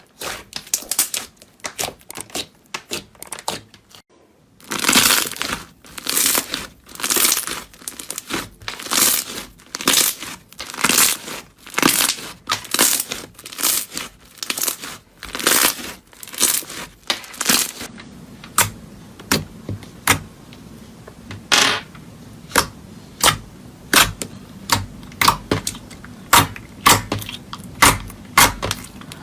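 Repeated crisp crunching and crackling as crunchy ASMR material, slime or soap, is squeezed and crushed by hand, about one or two strokes a second. There is a short pause about four seconds in, and from about eighteen seconds the strokes turn into shorter, sharper clicks over a low hum.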